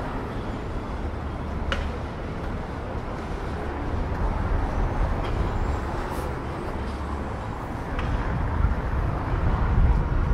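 City street ambience: a steady low rumble of road traffic, with a couple of faint clicks.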